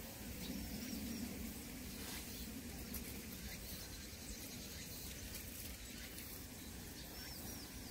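Faint outdoor ambience with a few short high bird chirps, one about half a second in and a quick run of three near the end.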